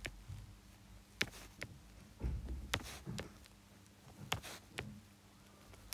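Several sharp taps and clicks of a stylus touching down on a tablet's glass screen while writing cursive letters, with a couple of soft low thumps. The short taps come as each letter is dotted.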